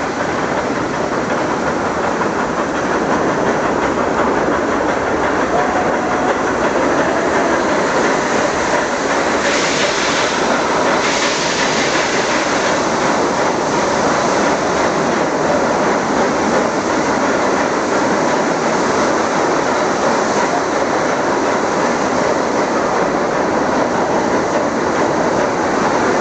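Steady rumble and clatter of a metre-gauge Nilgiri Mountain Railway train's wheels on the rails, heard from inside a moving carriage, growing louder over the first few seconds as the train runs into a tunnel. A brief hiss rises over it about ten seconds in.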